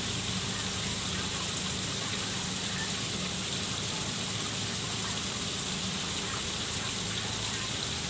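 Small garden waterfall spilling into a koi pond: a steady, even splashing of falling water.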